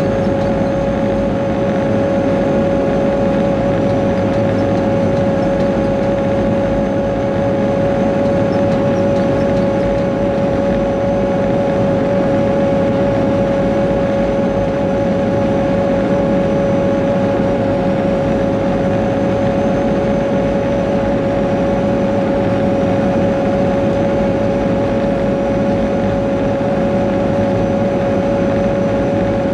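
Caterpillar 140G motor grader's six-cylinder diesel engine running steadily as the grader drives along a sealed road, heard from inside the cab, with a constant whine held over the engine drone.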